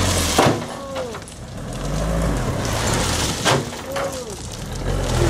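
Mitsubishi Fuso dump truck's diesel engine running in slow surges as it creeps forward with the bed raised, crushed stone pouring out the back. Two sharp clattering hits of rock cut through, and a short arched tone sounds twice.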